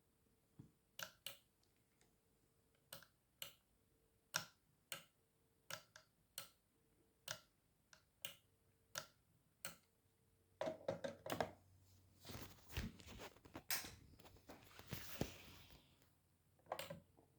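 A series of single sharp clicks about every half second to second, then several seconds of rustling, handling noise and knocks, and a last click near the end.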